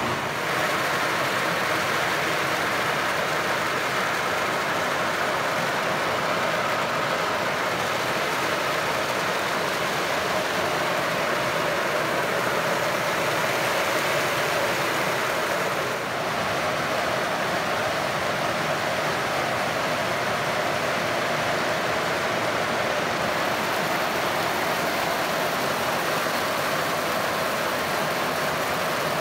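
Kadıoğlu Nutmec 180ED walnut hulling machine running, a load of fresh walnuts tumbling in its bristle-lined drum under water jets: a steady churning noise that does not let up.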